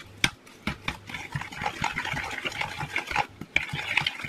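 A utensil stirring a wet cake-batter-like mixture of creamed butter, sugar, eggs and vanilla in a mixing bowl: a quick, irregular run of clicks and scrapes.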